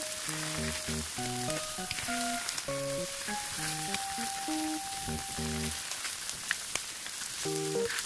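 Tofu slices and Spam frying in oil in a divided frying pan, a steady sizzle, with a few light clicks as a spatula turns the tofu on the pan.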